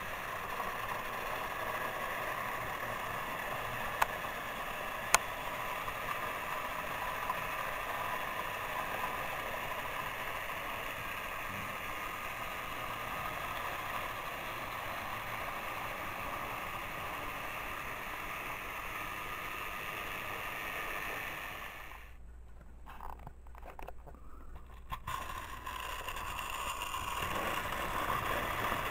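Battery-powered TrackMaster toy trains running on plastic track: a steady whir of their small motors and rattle of wheels over the track, with two sharp clicks about four and five seconds in. The sound dips and breaks up for a few seconds about three-quarters of the way through.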